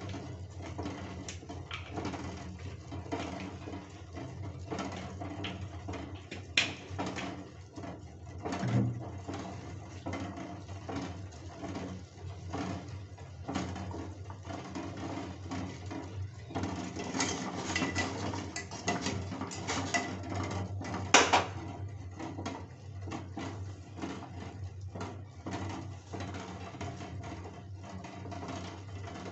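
Eggs boiling in water in a stainless-steel pot: steady bubbling with many small irregular ticks as the eggs knock against the pot. Two sharper, louder knocks come about a third and about two thirds of the way in.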